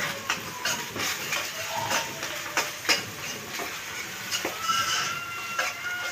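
Metal spatula scraping and knocking against a nonstick wok during stir-frying, with irregular clicks over a steady sizzle of food in hot oil. A few short, thin high tones sound in the background in the second half.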